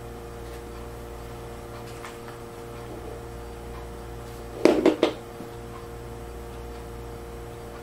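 Steady electrical hum with a constant tone, and about four and a half seconds in a quick run of three loud knocks or clicks within half a second.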